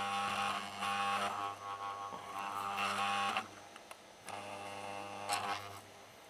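A 100 W electric soldering gun buzzing with a steady mains hum while its trigger is held, heating the solder joints to desolder a capacitor from a circuit board. The buzz breaks off for under a second about midway, comes back, and stops a little before the end.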